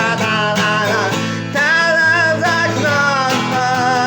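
Music: a song with guitar accompaniment and a singing voice carrying the melody between lyric lines.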